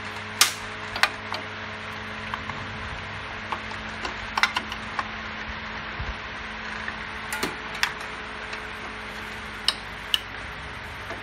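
Metal hand tools and small parts clinking: scattered sharp clicks and a few brief ringing clinks as the sprocket cover bolts are undone by hand with a T-bar, over a steady low hum.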